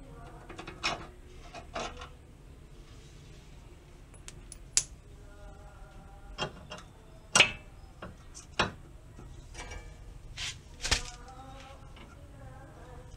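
Scattered metallic clicks and clinks of a wrench and hands working a car's stabilizer (sway bar) end link and its nut, about eight sharp taps spread over the span, the loudest about seven seconds in.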